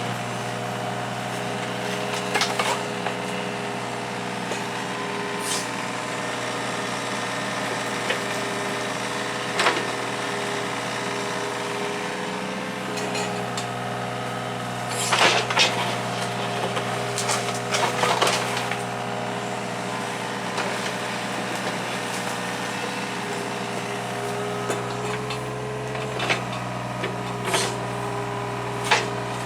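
Hitachi 35 mini excavator's diesel engine running steadily, with scattered sharp cracks and snaps of woody brush being torn out, several of them coming close together about halfway through.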